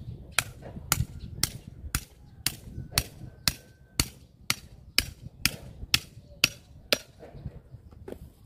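Knife chopping into a large striped catfish (pla sawai): a steady run of sharp, hard strikes, about two a second and some fifteen in all, that stops about a second before the end.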